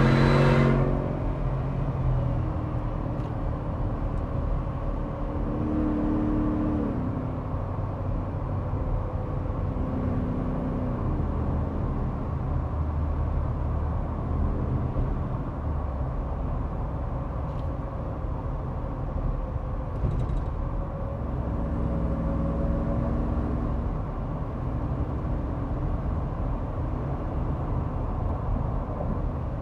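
Ford F-150 Shelby Super Snake Sport cruising, heard from inside the cab: steady tyre and road noise under the low drone of its supercharged V8, which swells and fades now and then. About a second in, a louder engine note drops away as the truck comes off the throttle.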